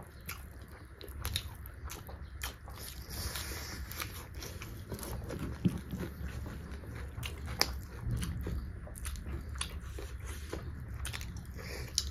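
Close-miked mukbang eating sounds: two people chewing mouthfuls of beef curry and rice, with wet smacks and many short sharp mouth clicks. The loudest click comes about halfway through, another a couple of seconds later.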